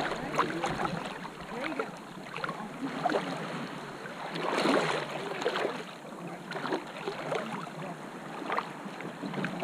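Shallow seawater lapping and sloshing right at the microphone, with irregular small splashes.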